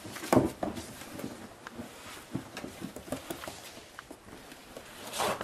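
Springer spaniel puppy scrabbling about on a wooden floor while it plays with a fabric dog bed: scattered quick taps and small knocks, with a louder knock about a third of a second in.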